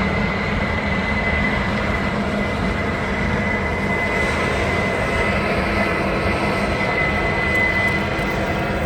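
Combine harvester running steadily while harvesting soybeans: a constant engine drone with a steady high whine over it.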